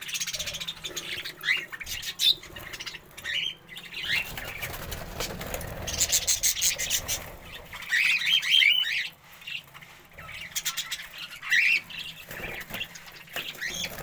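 Budgerigars chirping in short gliding calls that come in clusters, with scratchy rustling between them.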